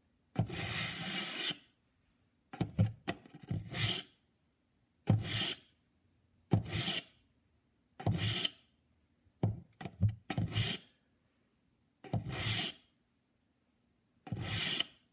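Wrenwane pull-through knife sharpener's coarse tungsten-carbide rods scraping a steel kitchen knife blade drawn through them in one direction: about ten rasping strokes, roughly one every second and a half, the first one the longest.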